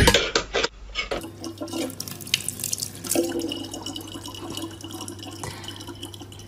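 A thin stream of tap water running into a sink, with scattered drips and small splashes. Upbeat music cuts off in the first second.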